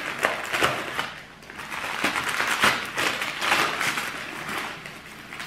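Gift-wrapping paper rustling and crinkling in quick, irregular crackles as a wrapped present is handled.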